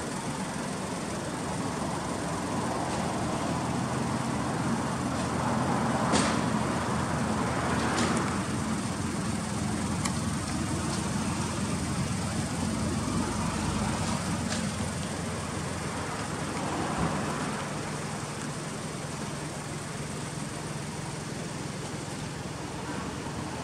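Steady background road-traffic noise with a low hum, and a few short knocks and clicks.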